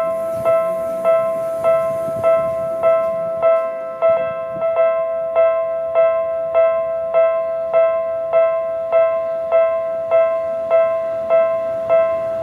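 Japanese railway level-crossing alarm bell ringing, one electronic bell tone struck evenly at just under two strikes a second while the crossing is closed for an approaching train.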